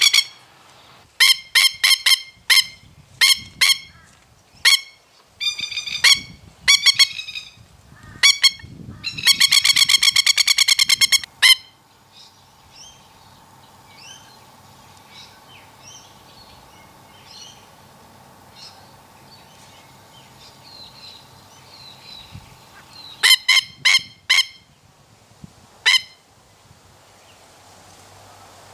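Masked lapwing giving very loud, strident calls in a threat display over its nest: a string of sharp single calls, then a fast rattling chatter lasting about two seconds that breaks off about eleven seconds in. After a lull with faint distant chirps, a few more sharp calls burst out.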